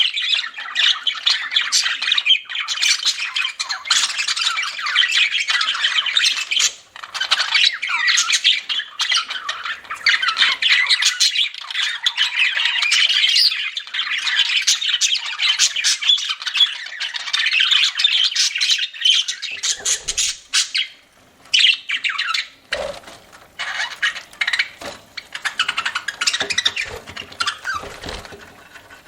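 Budgerigars chattering and squawking in a dense, continuous warble. After about twenty seconds the chatter thins out into scattered calls with short clicks and a few low knocks.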